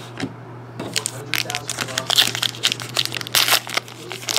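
A trading card pack wrapper crinkling and tearing as it is ripped open by hand, in a dense run of sharp crackles starting about a second in.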